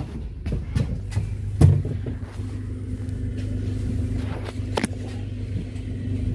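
Inside a Wright Gemini 3 double-decker bus pulling away: a steady low engine and drive hum, with a few short knocks and rattles in the first couple of seconds.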